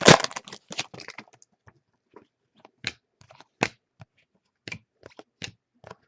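Football trading cards and their pack wrappers being handled: a quick run of crinkling and clicking in the first second, then single sharp clicks spaced out as cards are flipped and set down.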